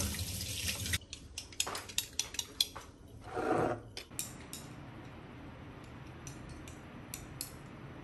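A ceramic bowl being handled on a stone countertop: a series of sharp clinks and taps, then a short louder scrape about three and a half seconds in, with a few lighter taps near the end.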